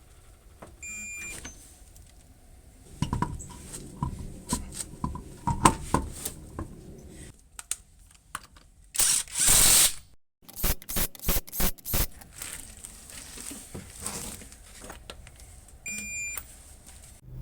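Hand tools working on a front hub nut as it is torqued to 118 foot-pounds, with scattered metallic clicks and clanks. A louder noisy burst lasting about a second comes about nine seconds in. A short beep sounds near the start and again near the end.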